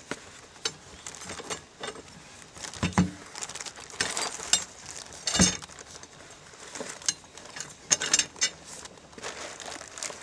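Packing sheets and parts being handled in a cardboard shipping box: irregular rustling with sharp clicks and knocks, and a couple of heavier knocks about three and five seconds in.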